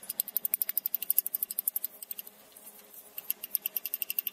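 Steel wire brush scrubbing slag off a fresh stick-weld bead on steel plate: quick, sharp back-and-forth strokes, about ten a second. The scrubbing stops for about a second midway, then starts again.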